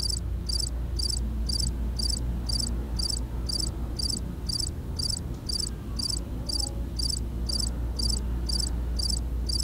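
Cricket chirping steadily, about two short high chirps a second, over a low steady hum.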